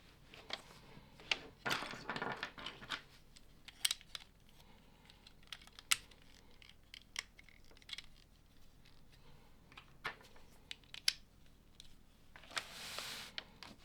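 LEGO plastic pieces clicking and clattering as they are handled and pressed together. There are scattered sharp clicks, with a spell of rustling about two seconds in and another near the end.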